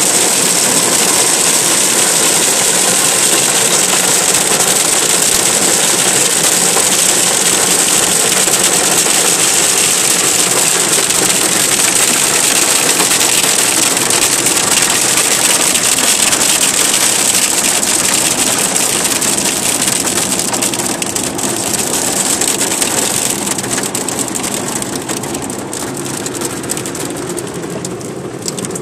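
Hail and heavy rain pelting the car's roof and windows, heard from inside the car as a dense, loud, steady clatter. It eases off a little over the last several seconds.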